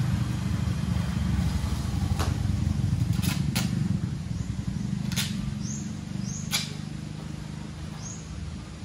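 A motor vehicle's engine running as a low rumble, loudest a few seconds in and then fading as it passes by. A few sharp clicks and some short high chirps sound over it.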